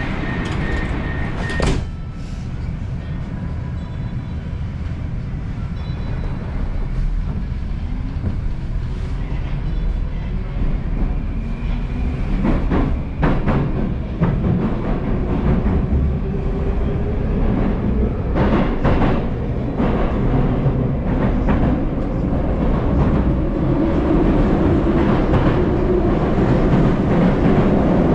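Moscow metro train pulling away and picking up speed in the tunnel. The rumble of the running gear grows steadily louder, a motor whine rises in pitch, and the wheels clack over rail joints about halfway through and again a few seconds later.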